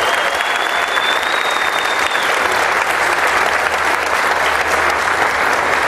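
Audience applauding steadily, with a thin high whistling tone over the first two seconds.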